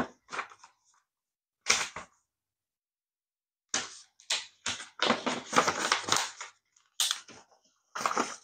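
Paper pages of a booklet being flipped and rustled: a couple of short rustles, then a longer run of page turning from about halfway, with more flicks near the end.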